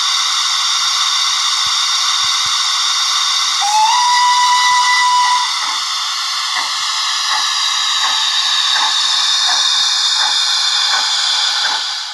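Sound decoder of a Dapol Terrier model steam locomotive playing a steady steam hiss through its small speaker. About four seconds in a short whistle blows, rising briefly and then holding for under two seconds. After that, exhaust chuffs start at about one every 0.7 s as the model moves off.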